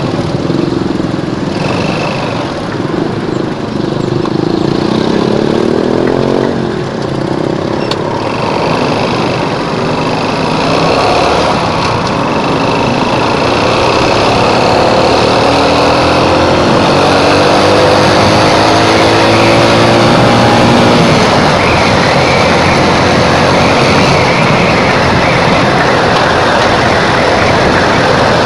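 Motorcycle engine accelerating through traffic, its pitch rising twice as it revs up, over steady road and wind noise that grows as speed picks up.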